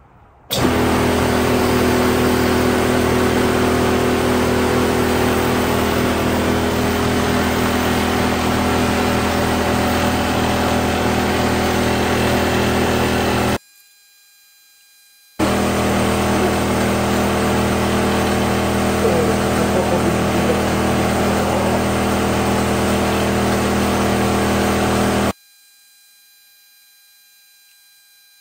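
220-volt single-phase Coltri MCH6 high-pressure air compressor running loud and steady under load, filling a 100 cubic inch tank from 150 to 300 bar, with a low drone and a steady hum. It starts suddenly, cuts off abruptly about halfway through, starts again shortly after, and cuts off abruptly near the end.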